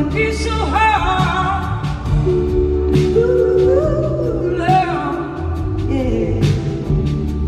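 Live blues-rock band playing, with a woman singing the lead vocal in sliding, drawn-out phrases over electric guitar, a steady bass line and drums with cymbal hits.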